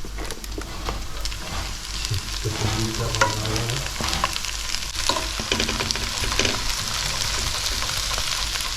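Crab halves going into a hot pan of frying garlic, ginger, capsicum and onion: a steady sizzle, broken by scattered clicks and knocks as the shells are laid in.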